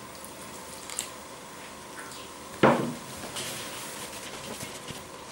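Hands mixing a soft, sticky bread dough in a plastic bowl: quiet squishing and rustling, with a small click about a second in and one louder knock or scrape of the bowl about two and a half seconds in.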